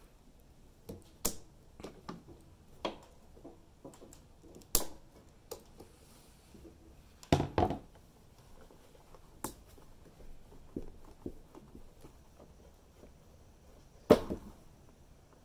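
Needle-nose pliers working the spring hose clamps and fuel hoses being pulled off an inline fuel filter. Scattered sharp clicks and knocks, the loudest about seven seconds in and near the end.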